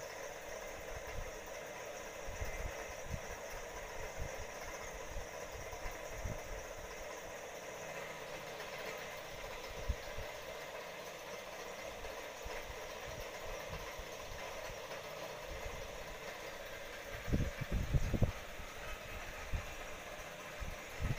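Steady mechanical hum and hiss, with a few low thumps about three quarters of the way through.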